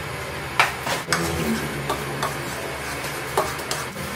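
A few light clicks and knocks from kitchen items being handled, about half a dozen over the few seconds, the sharpest one early on, over a steady low background hum.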